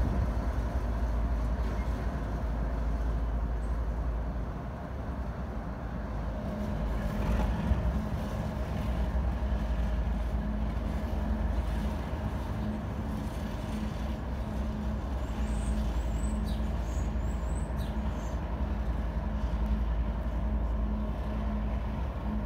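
GE ES44AC diesel locomotive running as the rear distributed-power unit of a loaded coal train, a steady engine drone with rolling rail noise as it pushes slowly away.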